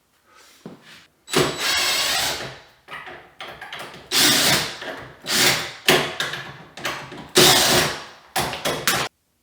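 A power tool run in about six short bursts, each half a second to a second long, with brief pauses between.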